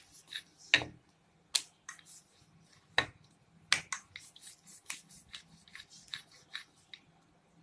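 Wooden rolling pin rolling out dough on a marble counter: a run of irregular sharp clicks and knocks as the pin is pushed back and forth, with a few louder knocks.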